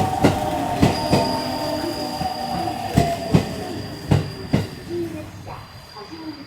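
Electric passenger train running slowly over rail joints, its wheels clacking in pairs as each bogie crosses, the pairs spreading further apart as it slows. Wheel squeal rings over the first few seconds, and a thin high whine runs on steadily.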